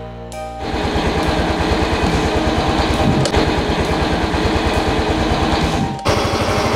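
Small motorcycle engine idling, a steady fast putter.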